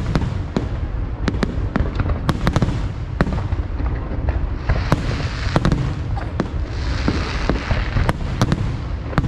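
Aerial fireworks display: a rapid, irregular string of sharp bangs over a continuous low rumble, with two stretches of dense hissing crackle about five and seven seconds in.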